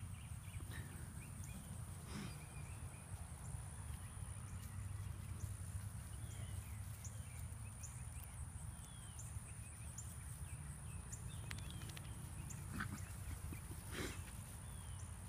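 Seven-week-old puppies playing on grass: faint scuffling and a few brief yips, the sharpest about two seconds in and twice near the end, over a low outdoor rumble and a steady high-pitched drone.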